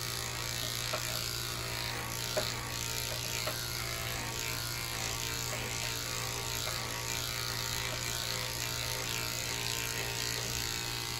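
Corded electric dog-grooming clippers running with a steady hum, cutting through a Portuguese Water Dog's curly coat on the side of its head.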